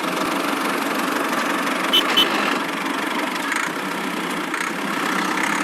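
The small engine of a miniature DIY tractor running steadily at idle, with two short clicks about two seconds in.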